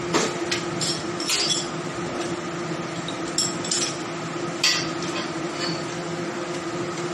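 Butcher's knife and tools knocking and clinking against meat, bone and the cutting surface while a beef hind quarter is broken down: about half a dozen short sharp knocks, the loudest nearly five seconds in, over a steady hum.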